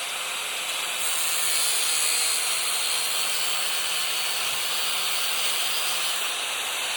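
Angle grinder running steadily as it cuts into an old television, a high hiss that grows louder about a second in.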